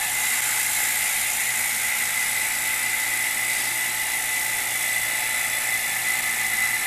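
Vacuum pump running steadily, a high whine over a hiss, drawing down a vacuum chamber to pull air out of wood soaked in stabilizing resin.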